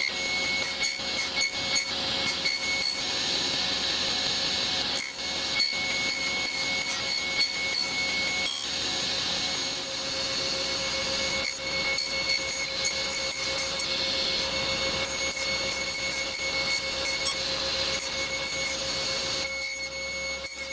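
Stationary woodworking power saw running steadily with a constant whine, cutting wood.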